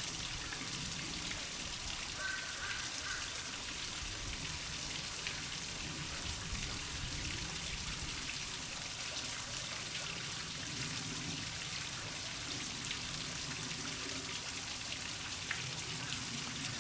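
Steady outdoor background noise: an even hiss with a light patter, like rain.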